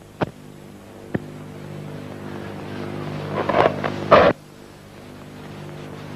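Steady engine drone of two military jet aircraft flying past overhead, with two louder rushes of noise a little past halfway.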